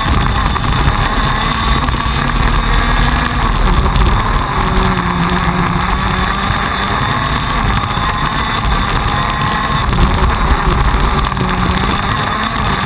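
Onboard sound of a TM 125 cc two-stroke KZ2 shifter kart engine at race pace, loud and continuous, its pitch rising and falling through the corners.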